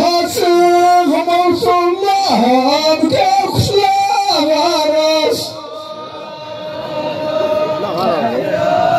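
Ahwach singing: a voice holds long, steady sung notes, and from about five and a half seconds softer, overlapping voices of a group take over.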